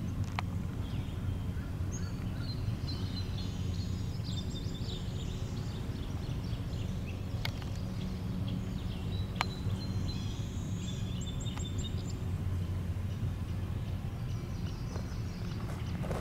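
Several songbirds chirping and singing in springtime woods. A steady low rumble runs underneath, and a few sharp clicks sound, one near the start and two around the middle.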